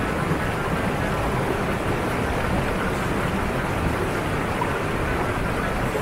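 Steady rushing of a fast mountain river over rocks, an even noise with no break.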